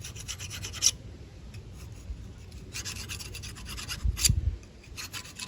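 Hand file rasping in spells of quick back-and-forth strokes on the pad abutments of a Toyota four-piston front brake caliper, cleaning the flat spots the pads slide on so nothing traps the new pads. A low thump comes about four seconds in.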